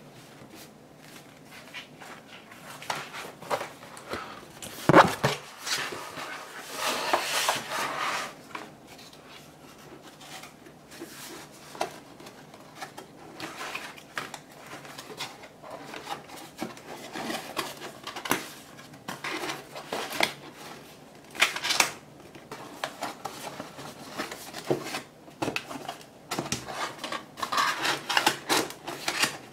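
Thin cardboard panels being folded, creased and slid over a tabletop by hand: rustling and scraping with scattered taps and clicks, and a sharp knock about five seconds in.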